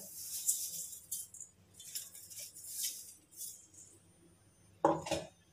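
Ground semolina pouring and being shaken out of a steel grinder jar into a steel bowl: a faint dry hiss and rattle of grains in scattered bursts, with a light clink of steel. A brief louder sound comes near the end.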